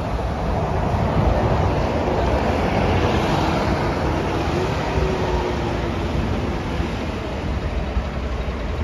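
Articulated city bus passing close and pulling away, its engine rumble and road noise loudest in the first few seconds and then easing, over steady street traffic.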